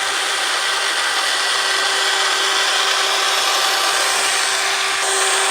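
Steady rasping scrubbing noise with a faint steady hum in it, from a toy concrete mixer truck being cleaned; it runs at an even level without a break.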